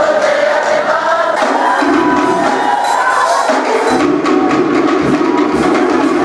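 Cook Islands song sung by a group of voices with musical accompaniment, steady and loud throughout, as backing for a dance performance.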